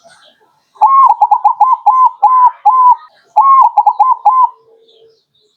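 Zebra dove (perkutut) cooing: two phrases of quick, clipped notes at the same pitch. The first starts about a second in with rapid notes slowing into longer ones; the second, shorter phrase follows after a brief pause.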